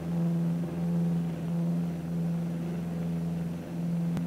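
Twin piston engines of a Cessna 310 in flight, a steady drone that swells and fades in a slow pulse about once a second. A single sharp click near the end.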